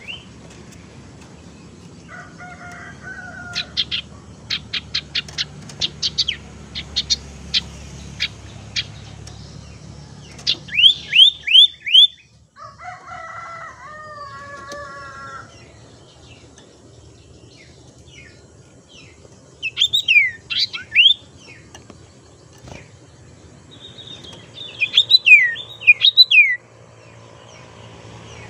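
Common iora (sirtu) calling: a run of short, sharp notes about two a second, then bursts of loud, quickly falling whistles, with a wavering warbled phrase between them. The falling whistles are the loudest sounds and come in three groups, near the middle and near the end.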